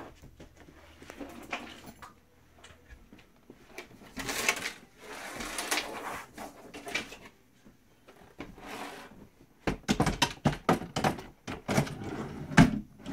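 A closet organizer drawer being handled and fitted onto its white roller drawer rails, with rustling and scraping in the middle. From about ten seconds in comes a quick run of sharp clacks and knocks as the drawer rolls along the rails and is pushed shut, testing that the re-fixed rails hold firm.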